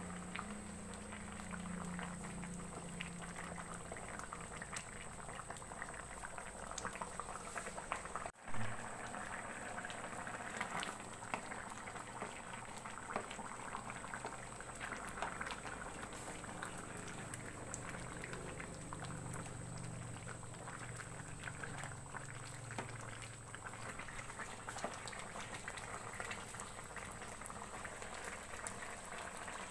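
Thick vegetable curry of bamboo shoot, potato and eggplant boiling in a kadhai: a steady crackle of popping bubbles. A single bump cuts in about eight seconds in.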